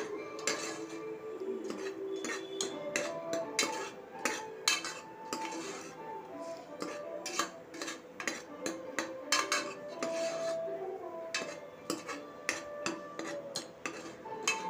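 Steel ladle scraping and knocking against the bottom of a pressure cooker as a shallot paste with turmeric and salt is stirred and fried, many sharp clinks close together, over soft background music.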